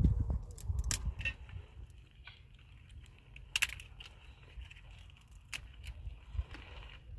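Scattered light clicks, knocks and crackles of hands handling dry sticks and a metal kettle, the sharpest about a second in and again about three and a half seconds in, over wind rumbling on the microphone.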